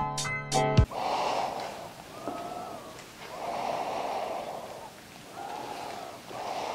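Instrumental music with sharp beats cuts off about a second in. After it a person breathes audibly close to the microphone, slow breaths in and out, about one a second.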